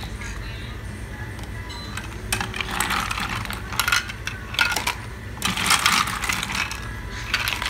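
Ice cubes clattering as they are dropped into a plastic cup, in several short bursts of clinks.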